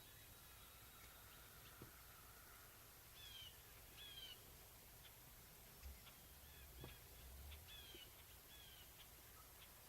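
Near silence with faint bird calls: a handful of short, downward-slurred chirps at intervals, and a few soft clicks.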